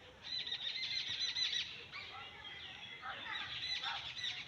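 Several small birds giving harsh, rapid alarm calls in two bouts of dense chatter. They are mobbing a cat that has just attacked their nests.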